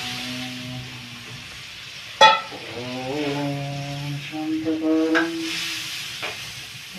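Puris frying in hot oil in a kadhai, a steady sizzle, while a man hums long, low, drawn-out chant notes. A single sharp metal clink about two seconds in, the ladle against the pan.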